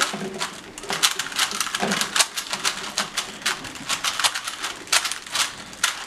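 Several Rubik's Cubes being twisted fast at once: a rapid, irregular clatter of plastic clicks as the layers are turned.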